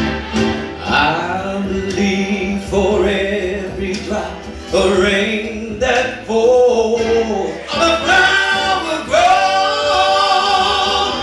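R&B vocal group singing live: male lead voices carry an old-school soul love song over instrumental backing.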